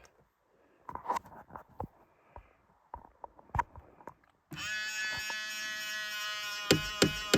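A few light clicks and knocks, then about four and a half seconds in a steady buzzing whine starts abruptly and holds, with a couple of sharp clicks near the end: the 2000 Ford Explorer's power side-mirror motor making its odd noise.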